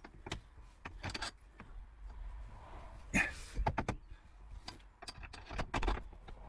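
Irregular clicks, taps and knocks with light rustling in between as a van window blind and its trim are handled and pushed into place; the clicks come in small clusters about a second in, around the middle and again near the end.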